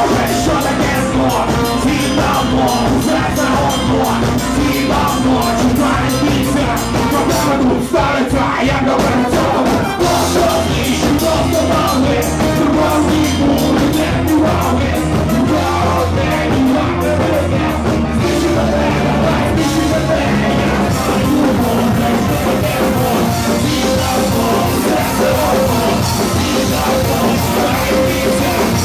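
Live band music played loud without a break: drum kit, keyboard and brass section.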